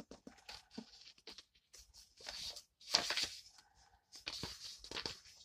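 Paper pages of a book being turned and rustled: a string of short, soft swishes, the loudest about three seconds in.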